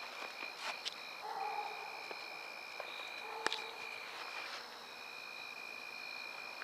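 Night insects, crickets trilling steadily in two high pitches with short breaks, faint, with a couple of sharp clicks, the louder one about halfway through.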